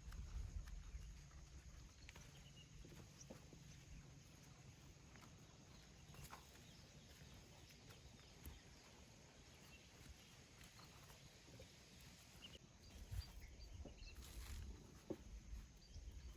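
Near silence: faint outdoor ambience with a low rumble and scattered soft clicks and knocks, a little busier near the end.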